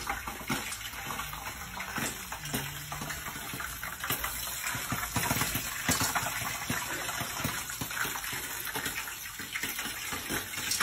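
Popcorn popping: many quick, irregular pops over a steady hiss.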